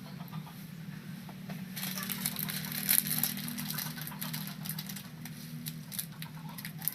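Dense crackling and clicking that sets in about two seconds in, is loudest shortly after, then thins out, over a steady low hum.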